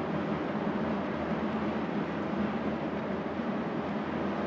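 Steady low drone of tugboat diesel engines pushing against a large warship's hull, over an even hiss of wind and rain.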